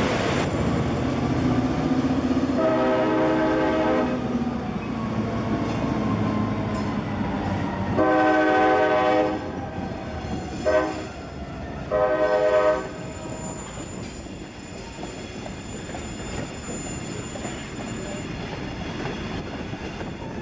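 CSX diesel freight locomotives passing and sounding the horn four times: long, long, short, long, the pattern blown for a grade crossing. After that the freight cars keep rolling by with a steady rumble and clatter.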